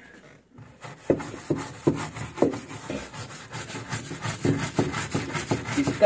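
Hand brush scrubbing the plastic floor of a semi-automatic washing machine's wash tub over washing powder, in quick back-and-forth strokes of about two a second that start about a second in.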